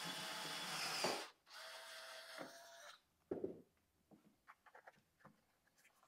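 DeWalt 20V cordless drill turning a step bit through a Club Car DS dash panel, a steady motor whine with the grinding of the cut. It stops briefly just after a second in, runs again, and stops about three seconds in, followed by a few light clicks and knocks.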